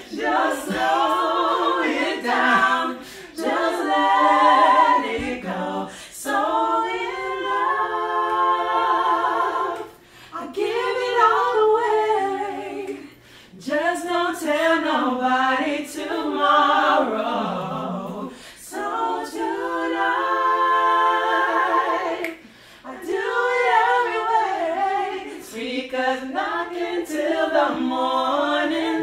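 Several young adults singing together a cappella, unaccompanied voices holding long sung phrases broken by short pauses for breath every few seconds.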